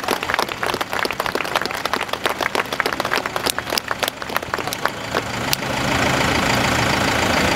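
Scattered clapping from a small crowd, then about three-quarters of the way through a steady engine noise comes up and becomes the loudest sound, running evenly.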